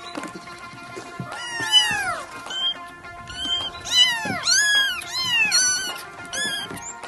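Kittens meowing, high-pitched, several calls that rise and fall, with a quick run of them about four to five seconds in, over background music.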